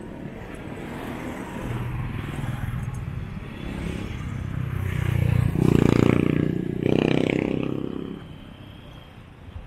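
A motorcycle engine passing close by: it grows louder over several seconds, is loudest about six to eight seconds in, then fades away.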